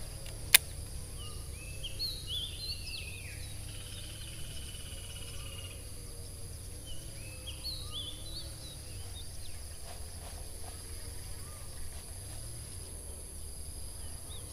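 Birds chirping in short rising and falling notes over a steady high insect drone. One sharp click sounds about half a second in.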